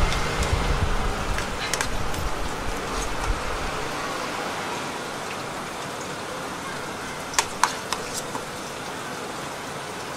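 Steady hissing background noise, with a low rumble fading out over the first few seconds and two sharp clicks about seven and a half seconds in.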